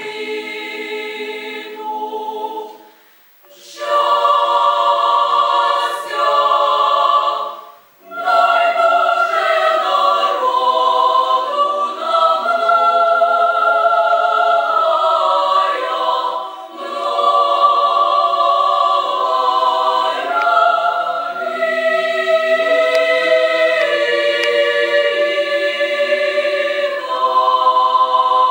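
Female chamber choir singing a cappella in several parts: long held chords that shift every second or two, with two short breaks about three and eight seconds in.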